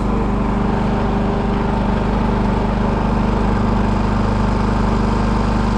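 WEN 56477i 4800-watt inverter generator running steadily in eco mode and low on fuel: an even engine hum with a low buzz.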